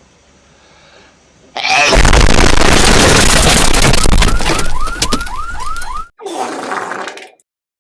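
Sudden, extremely loud, distorted blast of noise about a second and a half in: a deliberately overloud 'ear-rape' joke ending. Near its end come a string of short rising squeals. After a brief break there is a second, shorter loud burst, which cuts off suddenly.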